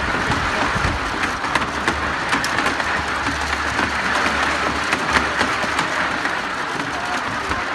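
Kid-powered snow cone machine running: a large wooden treadwheel turned by a running child drives the ice shaver, giving a steady, rough clattering and scraping noise full of small clicks. A low hum joins in for a couple of seconds in the middle.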